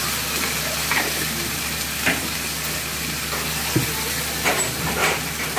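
Sliced onions, tomato and green chilli sizzling steadily in coconut oil in a clay pot, as spice powder goes in. A few short knocks and scrapes come through at intervals.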